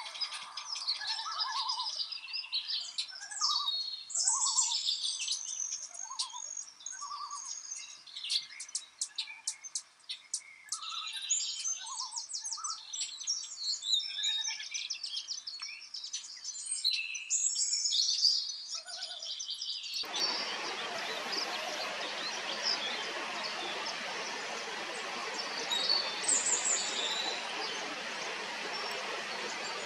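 Several songbirds singing and calling, with quick trills and short repeated chirps. About twenty seconds in, the sound cuts to a steady rush of running water with a few bird notes over it.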